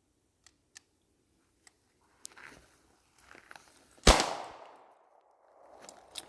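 A single gunshot from an Auto-Ordnance Thompson M1 submachine gun in .45 ACP about four seconds in, with a short echo trailing off. The gun fires once and stops because it has jammed on the next round. A few faint clicks come before the shot.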